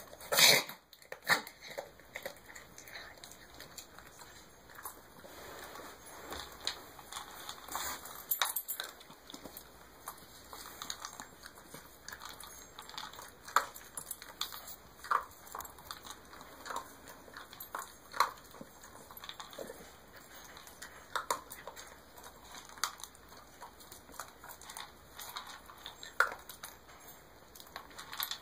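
A dog makes a loud snorting intake right at the start, the tail end of a reverse-sneeze episode. Then it goes fairly quiet, with faint scattered clicks and small movement sounds.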